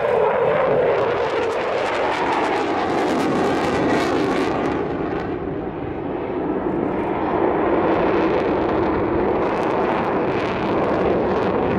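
Jet noise from a McDonnell Douglas F-15 Eagle's twin Pratt & Whitney F100 turbofans as the fighter flies display manoeuvres: a loud, steady rushing that eases briefly about halfway through and then swells again.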